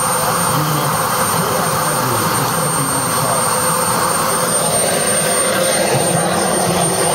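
Small gas turbine engine of a radio-controlled model jet running at a steady level: a dense rushing noise with a thin high whine over it.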